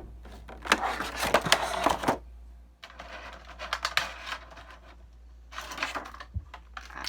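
Stiff plastic blister packaging crackling and clicking in three bursts as a boxed action figure and its accessories are worked out of the plastic tray.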